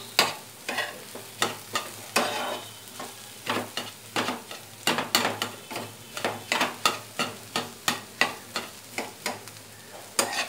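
White plastic spatula scraping and tapping in a black frying pan, stirring scrambled eggs with diced bell peppers and onion. It makes short irregular strokes, two or three a second, over a light sizzle.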